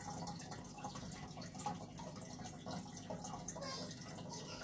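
Aquarium filter water trickling and bubbling, a steady wash of water with many small irregular drips and splashes.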